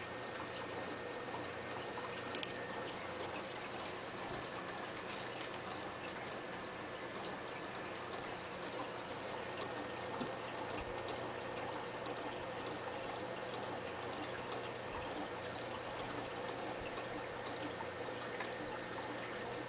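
Aquarium filter running: a steady trickle and splash of water with streams of bubbles, under a faint constant hum.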